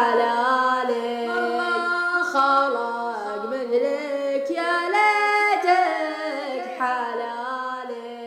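Unaccompanied layered vocals of a sheila chant, several voices holding notes together in harmony and moving in steps without words, fading toward the end.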